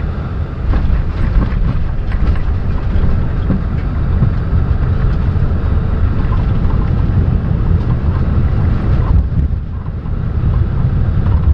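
Airbus A310-300 touching down, with a few short jolts about a second in. It then rolls out on the runway with a loud, steady low rumble under heavy braking.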